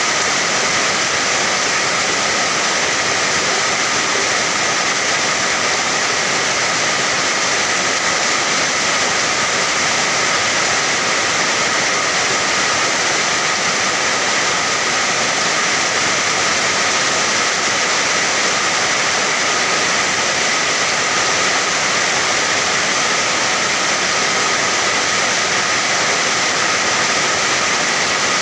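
Steady, dense rain noise with no distinct drops or changes, the even hiss of heavy rainfall.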